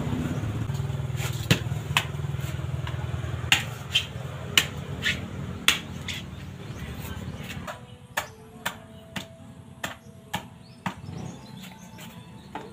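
Machete chopping into a coconut shell with sharp whacks. There are several hard blows in the first half, then a run of lighter, quicker strikes about two a second.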